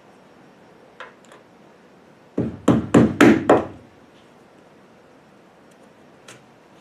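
Mallet tapping a scraper hooked onto a window-molding clip, driving the clip down onto its post on the rear window flange. Two light taps come about a second in, then a quick run of about five sharper knocks, and one more light tap near the end.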